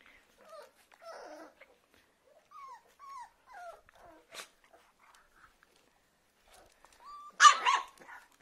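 A puppy whimpering in a few short, falling whines, then giving one loud squealing yelp about seven and a half seconds in, while its mother mouths it and tries to pick it up.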